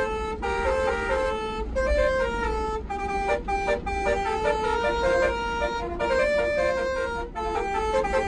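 Multi-tone 'telolet basuri' bus air horns playing a stepping tune, note after note, with the bus's engine running low underneath.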